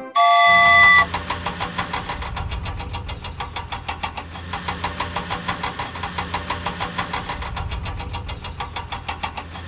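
Cartoon vehicle sound effects: a short, loud horn honk, then an engine idling with a rapid, even clatter.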